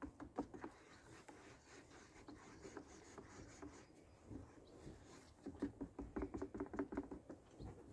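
Wooden stirrer stirring a hot drink in a paper cup: faint scraping and light tapping against the cup's sides, with a quicker run of strokes, about four or five a second, near the end.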